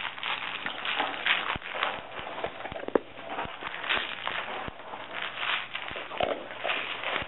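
Dogs nosing hollow plastic treat balls around: irregular clicks and knocks with rattling and rustling, the sharpest knock about three seconds in.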